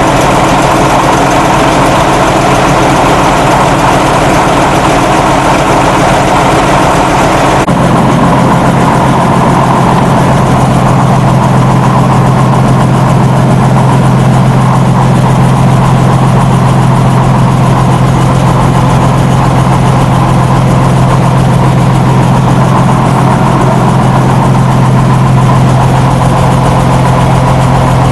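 Old Diamond T truck's engine running steadily. About eight seconds in its note changes and settles into a steady low hum.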